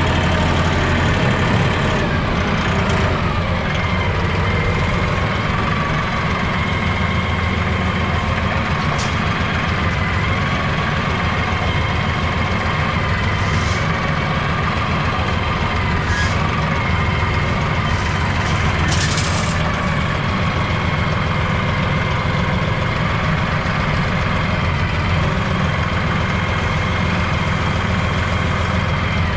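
Engine running steadily at a constant speed, with a low rumble and a faint whine above it.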